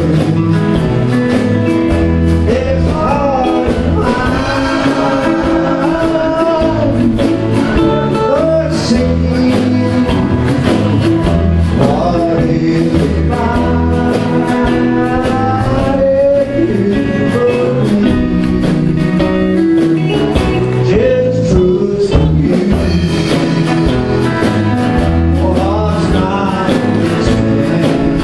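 Live band music: a man singing with acoustic guitar accompaniment, steady and continuous.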